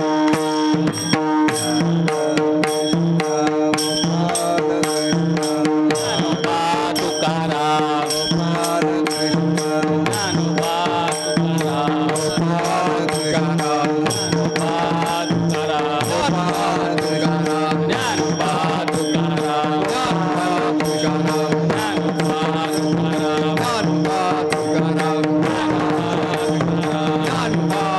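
Marathi devotional bhajan singing with a two-headed hand drum, evenly spaced sharp beats keeping a steady rhythm over a sustained drone.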